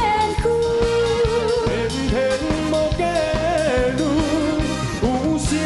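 A man and a woman singing a Taiwanese Hokkien pop duet into microphones over backing music with a steady drum beat.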